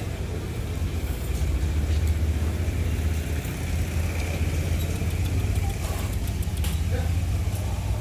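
Steady low rumble of an idling engine, with a few faint clicks over it.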